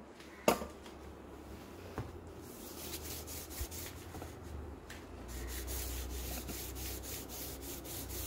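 Rubbing strokes on a stainless steel sink, repeated quickly and evenly at about four strokes a second, with a single sharp knock about half a second in.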